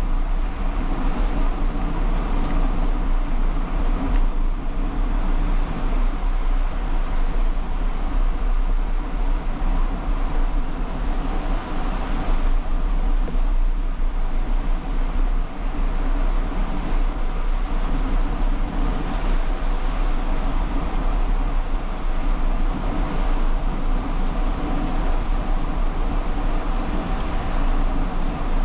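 Wind buffeting a handlebar-mounted action camera's microphone on a moving bicycle, with no wind reduction applied: a steady, heavy low rumble under a constant rolling hiss.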